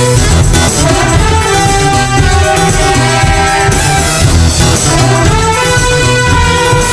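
Jazz big band playing a TV theme, with the brass section of trumpets and trombones prominent over bass and drums.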